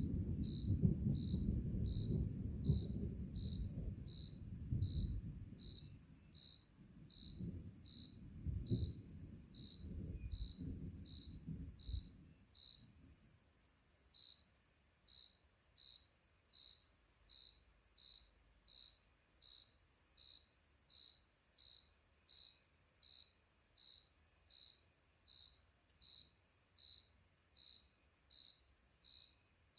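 Distant thunder rumbling in waves and fading away about twelve seconds in, under an insect chirping steadily, about three short chirps every two seconds, which continues alone afterwards.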